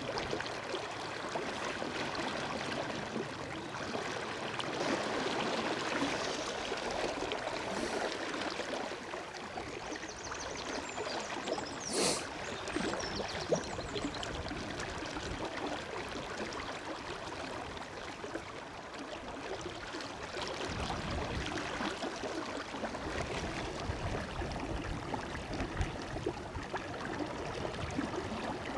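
River water rushing steadily over a shallow riffle, with low gusts of wind buffeting the microphone in the second half and a single sharp click about twelve seconds in.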